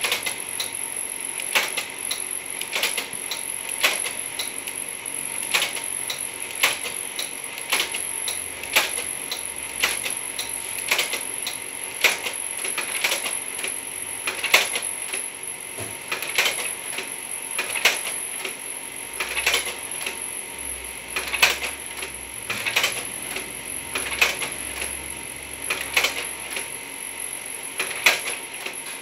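Kodak Ektapro 3000 carousel slide projector changing slides on remote command: a sharp mechanical click about once a second as the slide mechanism cycles and the round tray steps on. A steady high whine runs underneath.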